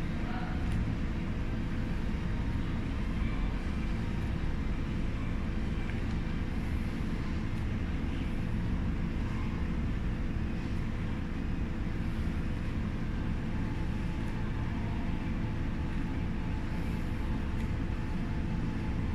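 Steady low rumble with a constant hum over it and no distinct events.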